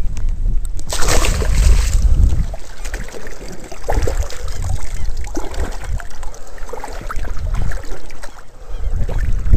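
Water splashing and sloshing around a landing net in shallow water, with a burst of splashing about a second in, over a steady low rumble.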